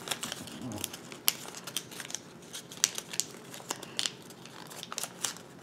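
A small sheet of origami paper being folded and creased by hand: soft crinkling with scattered crackles and a few sharper snaps of the paper.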